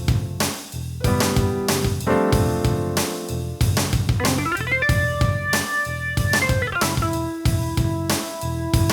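Drum-machine beat with bass from a Zoom RT-223 rhythm machine, under keyboard chords and an organ line. About four seconds in, a note slides up in pitch, and after it come long held organ notes.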